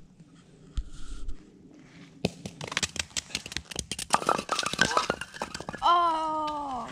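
A firewood round rolling over ice and crashing into upright firewood pins, a rapid run of crackling clicks and wooden knocks as the pins topple. Near the end a person's voice gives a long exclamation that falls in pitch.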